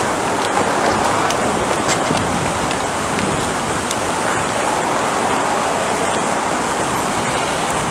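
Steady outdoor city background noise, a continuous hiss and rumble like distant traffic.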